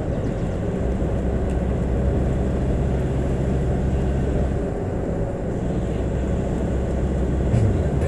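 Steady low rumble of a vehicle's engine and tyres on the road, heard from inside the moving vehicle.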